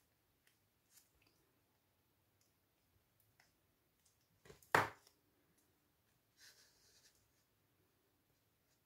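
Hands handling paper and a small craft tool at a desk: faint scattered clicks, one sharp tap about halfway through, then a brief rustle of paper.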